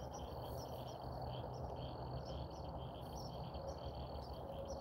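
Crickets chirping in an even rhythm, a few chirps a second, over a faint steady low hum.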